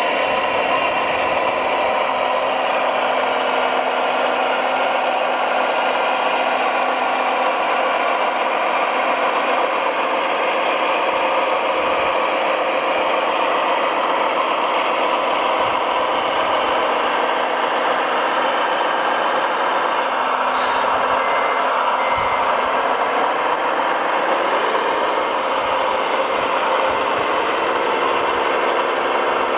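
Radio-controlled model truck running: a steady mechanical whine and hum from its motor and drive.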